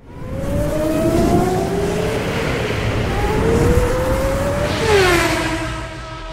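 Formula One-style race car engine revving, its pitch climbing in two long rises, then dropping sharply about five seconds in as it sweeps past and settling to a steady note.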